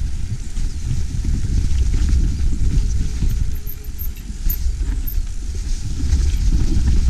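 Low, steady rumble of a car driving, heard from inside the cabin: road and engine noise with no clear events.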